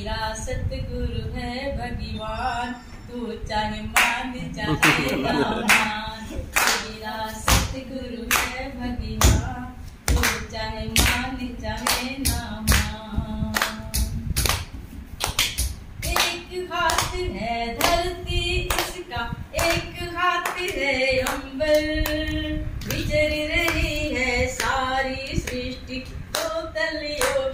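A woman singing a Hindi devotional bhajan to her guru, unaccompanied by instruments, with steady hand clapping keeping the beat.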